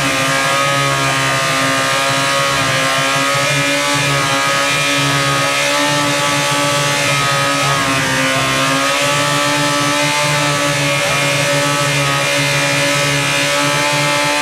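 Yamaha R1 inline-four motorcycle engine running on a stand at high, steady revs while it is deliberately run to destruction. Its pitch sags briefly about eight seconds in, then recovers.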